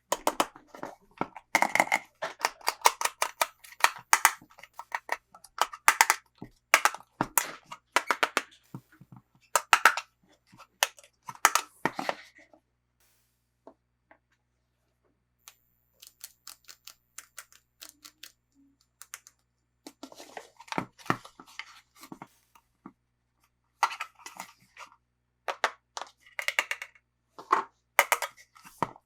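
Toy packaging being handled and opened, with crinkling and clicking. The packaging sounds are busy for about the first twelve seconds, almost stop for a few seconds, then pick up again from about sixteen seconds on.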